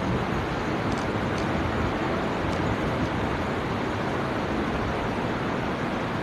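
Steady hiss of room noise in a large, crowded prayer hall, with a few faint clicks about one and two and a half seconds in.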